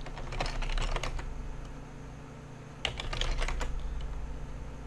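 Typing on a computer keyboard: a quick run of keystrokes at the start, then a second run about three seconds in.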